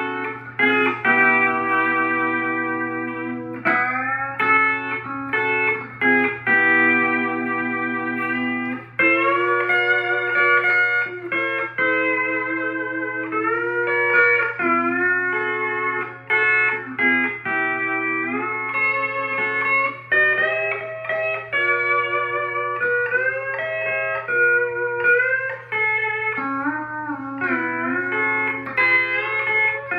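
E9 pedal steel guitar played with the A pedal down: sustained sixth chords and single notes in a jazzy, bluesy progression in the key of A, some chords gliding up or down in pitch. A steady low hum sits underneath.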